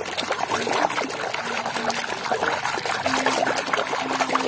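Hands rummaging through thick, watery mud in a plastic tub: continuous wet squelching and dribbling.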